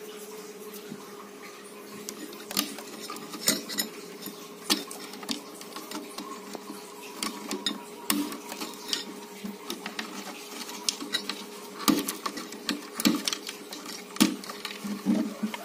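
Small irregular plastic clicks and scrapes as wire-to-board connector plugs are worked loose and pulled off the amplifier circuit board of a Polytron XBR active speaker. A faint steady hum runs underneath.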